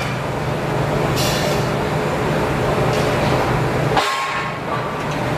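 Steel strips cut from railroad track clanking and scraping as they are handled and slid onto a wooden table, over a steady hum of workshop machinery. Brief sharp metallic hits come about a second in, at about three seconds and at about four seconds.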